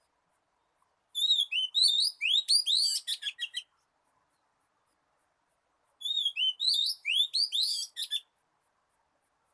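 Oriental magpie-robin singing: two phrases of quick, varied whistles and chirps, each a little over two seconds long and a few seconds apart.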